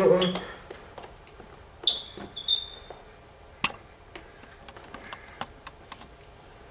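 A person's wavering vocal cry trails off in the first half-second, followed by scattered light clicks and knocks, with two short high squeaks about two seconds in.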